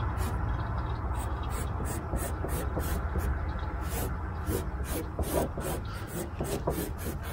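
Fingers rubbing and pressing painter's masking tape down onto a car's rear fender panel, a run of short scratchy rubbing strokes over a steady low hum.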